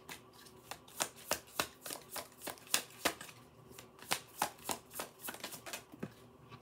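A deck of tarot cards being shuffled by hand, overhand from one hand into the other, giving a steady run of soft card slaps and flicks at about three a second.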